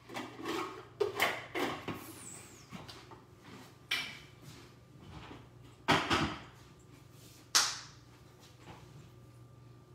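Scattered knocks and clatters of things being handled in a kitchen, cupboard- or drawer-like, the sharpest ones about six and seven and a half seconds in, over a faint steady low hum.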